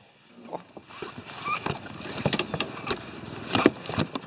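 Irregular knocks, clicks and rustles of handling on a plastic kayak, starting after a quiet first second, the loudest knock about three and a half seconds in.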